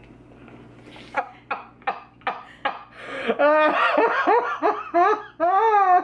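Two men laughing with hands over their mouths. The laughter starts about a second in as short, sharp breathy bursts and builds into loud, continuous laughter, a reaction to the bad taste of the cookie they are chewing.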